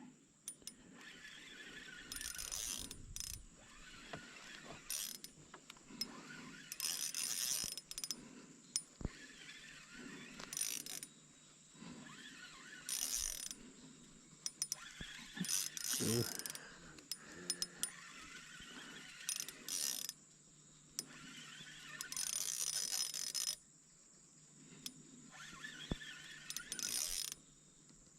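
Small spinning fishing reel being cranked in repeated short bursts, its gears and anti-reverse mechanism whirring and clicking as line is wound in.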